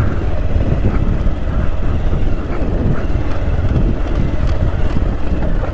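Motorcycle engine running at low speed on a rough, stony dirt track, with a steady low rumble and small irregular knocks and rattles from the bumps.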